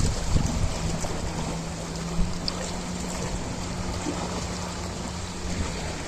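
Ocean waves washing with a steady rush of water, wind buffeting the microphone in low rumbles, and a steady low hum from about a second in until near the end.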